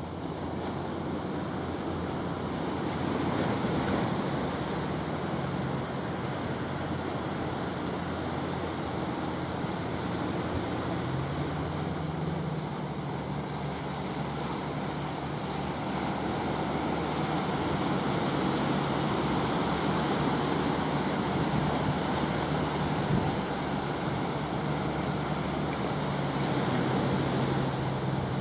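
Wind and breaking surf, with the steady low note of a wooden fishing boat's engine running as the boat heads in through the waves; the engine's pitch steps up slightly about eleven seconds in.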